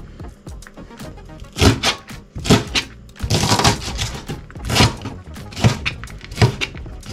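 Kitchen knife chopping long green onion (negi) on a plastic cutting board, a chop roughly every second, with a longer run of cutting about midway.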